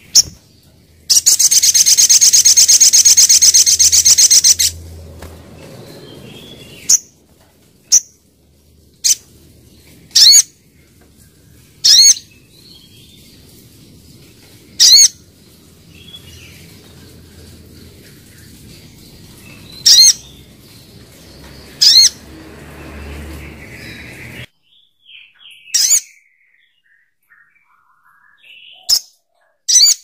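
Olive-backed sunbird calling. About a second in comes a loud, rapid, buzzing high trill lasting about three seconds, followed by single short, sharp high chips every one to three seconds.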